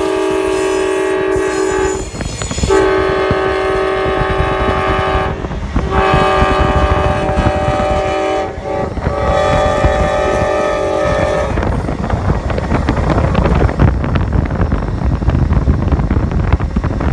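Amtrak Crescent locomotive horn sounding a chord in four long blasts, then the train rolling past with its wheels clattering over the rails.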